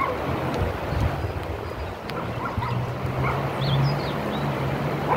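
A vehicle on the move: a steady low engine hum under road and wind noise, with a few faint high chirps.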